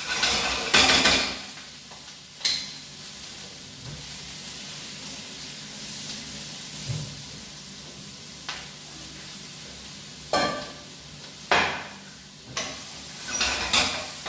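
Smoked tofu cubes and sliced Brussels sprouts sizzling in oil in a frying pan, with a wooden spatula scraping and stirring through them during the first second or so and again in bursts over the last few seconds. A steady sizzle and a few light knocks fill the stretch in between.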